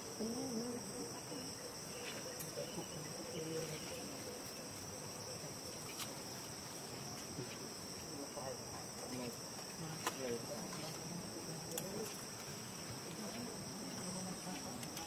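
Insects chorusing in a steady, unbroken high-pitched drone, with faint wavering sounds lower down and a few light clicks.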